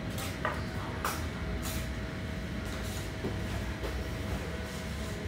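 Steady low background rumble with a faint constant hum, and three soft footsteps on a tiled floor about a second in as someone walks over to sit on a bench.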